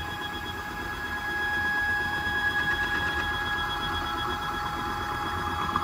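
Stepper motor driving a wooden DIY CNC carriage along a single-start 2 mm-pitch lead screw: a steady whine over a low rumble as the axis travels.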